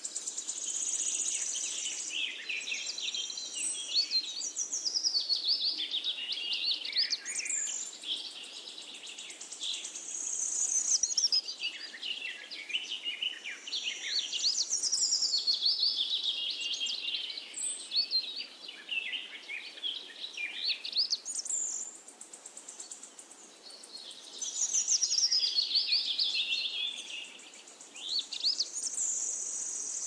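Songbirds singing in a forest at dawn: long phrases of quick, high warbling notes that come again every few seconds, over a quiet background.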